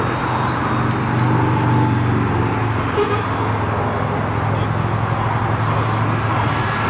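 Jet airliner engine noise at an airport: a steady, loud rumble with a low hum. A faint short click comes about three seconds in.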